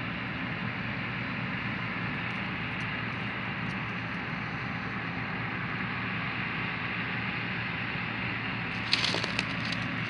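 A vehicle engine running steadily, with a short burst of crackling near the end.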